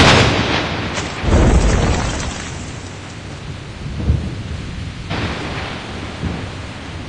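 Thunder over steady rain: a sudden loud crack right at the start and a second rumble about a second in, both fading slowly while the rain keeps up.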